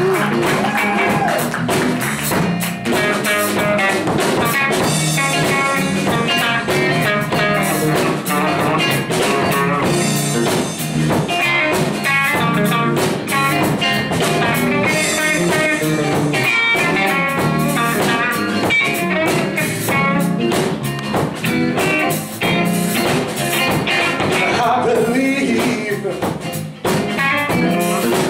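Live electric blues band playing: a Les Paul-style electric guitar plays fast lead lines over electric bass and a drum kit.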